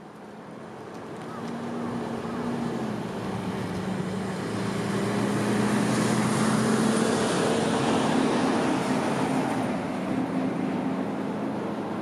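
Road traffic with a large truck driving past, its engine hum swelling in over the first couple of seconds, loudest about halfway through as it goes by, then easing off.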